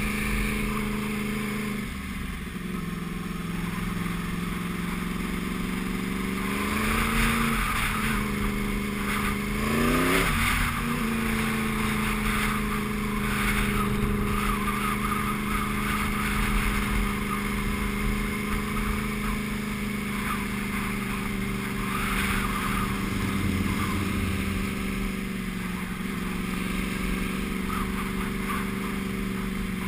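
Sport motorcycle engine running under way, its note dropping about two seconds in and then rising twice, around seven and ten seconds in, before settling again, with steady wind and road noise on a helmet-mounted camera.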